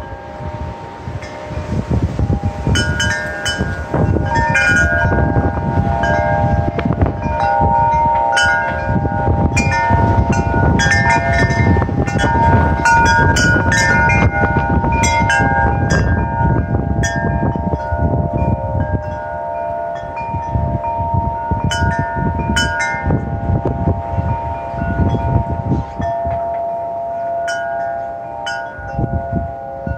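Wind chimes ringing continually in gusty wind, several pitches struck over and over and left ringing into one another. Underneath, gusts of wind rush through trees, building about two seconds in and easing off through the second half.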